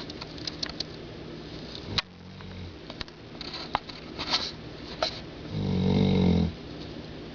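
Slow snoring: a short, weak snore about two seconds in and a louder snore lasting about a second near the end, with small clicks and snuffles between breaths.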